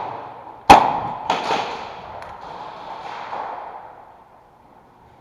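A loud, sharp bang about a second in, followed quickly by two fainter cracks, then a long fading echo.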